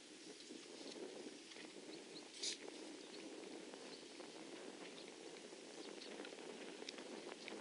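Faint open-air background noise with scattered soft ticks, broken about two and a half seconds in by one short, hissing burst, the loudest sound here.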